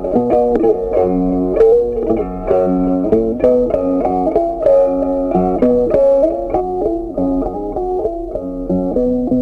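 Background music: a guitar tune, its notes changing several times a second.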